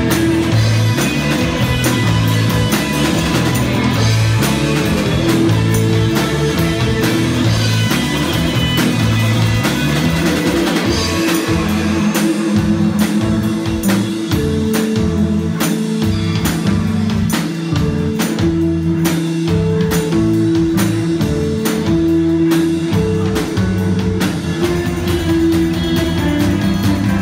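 Live rock band playing: electric guitars, bass and drum kit. The drum hits come through more sharply from about halfway through.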